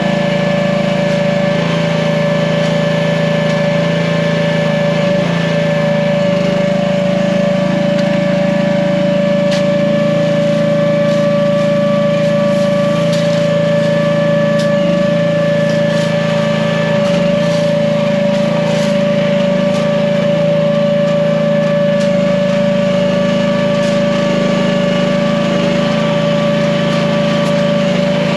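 Small gasoline engine of an AGT H15 mini excavator running steadily at a constant speed, with a steady whine over the engine note. A few light ticks come through in the middle.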